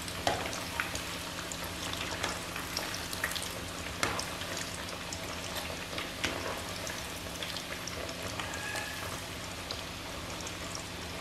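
Breaded chicken tikka resha kababs frying in hot oil in a wok: a steady sizzle with scattered sharp pops and clicks.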